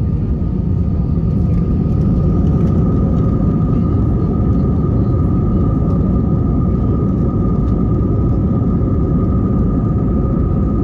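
Cabin noise of a Volaris Airbus A320-family jet rolling on the ground, heard from a window seat over the wing: a steady engine rumble with a constant high whine. It grows slightly louder about a second in.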